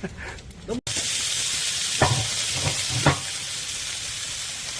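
Pork belly (samgyeopsal) sizzling steadily on a griddle plate over a wood-burning stove, starting suddenly about a second in, with three short knocks partway through.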